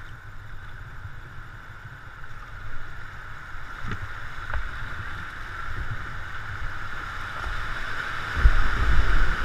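River water rushing and splashing around a canoe, getting louder as the boat runs down a small rapid, with heavier low rumbling near the end.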